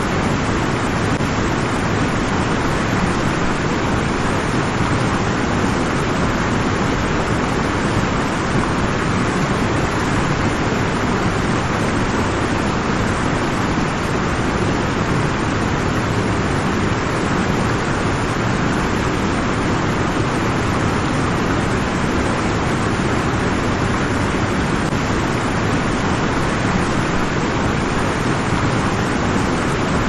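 Waterfall: a steady, deep rush of falling water.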